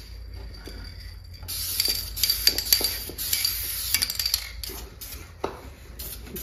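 Aerosol spray-paint can being shaken, the mixing ball rattling rapidly inside it. It is loudest from about a second and a half in to about four seconds, with a few shorter rattles after.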